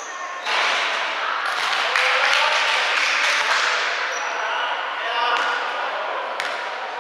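Indoor team game echoing in a sports hall: players' voices calling out, short high squeaks of shoes on the court floor, and sharp knocks of play, two of them close together near the end.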